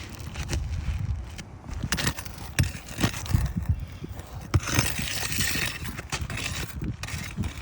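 Roofing nails being pried out from under asphalt shingles: irregular knocks, clicks and scraping of a metal tool against the shingles, with a longer scrape about five seconds in.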